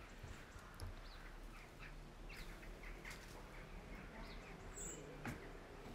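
Faint bird chirps: many short, high calls scattered throughout, with two soft clicks, one about a second in and one near the end.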